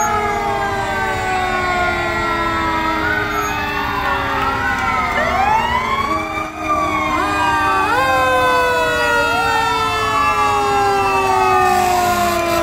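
Several fire engine sirens wailing at once, their rising and falling tones overlapping out of step. In the second half some tones slide slowly downward.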